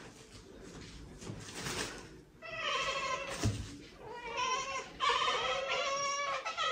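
Several cats chattering and chirping together in quick, broken, overlapping calls. The calls start about two and a half seconds in after a quieter opening and grow louder near the end. This is the excited chatter cats make when fixed on prey they cannot reach.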